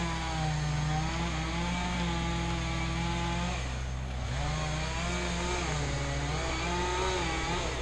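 A chainsaw engine idling steadily, its pitch wavering slowly up and down.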